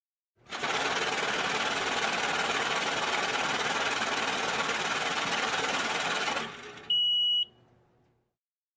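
Electric banknote counter riffling a stack of bills at high speed for about six seconds, then winding down. A single short, high-pitched beep follows as the count finishes.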